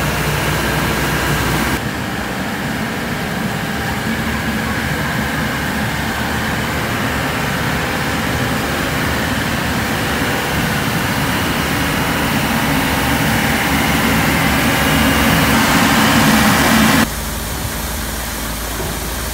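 Isuzu road sweeping truck with a 120 hp turbo engine running with its sweeping gear working: a loud, steady mechanical noise. Its character changes abruptly about two seconds in and again near the end.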